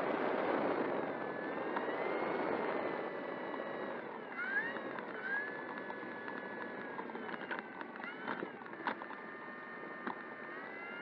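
Electric brushless motor and propeller of an E-flite Air Tractor RC plane, close to the microphone, spinning up and running with a whine whose pitch rises, dips and rises again about four seconds in as the throttle is worked, then holds steady. A few sharp ticks come around eight and nine seconds in.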